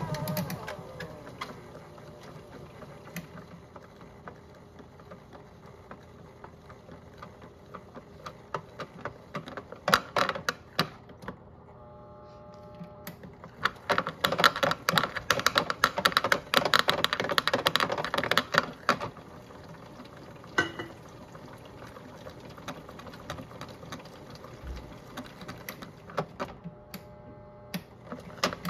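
Modified Miele toy washing machine running a wash, its small motor humming as the drum tumbles a wet toy turtle in soapy water. There are bursts of rapid clicking and clattering, densest for about five seconds midway, and a faint motor whine comes in briefly twice.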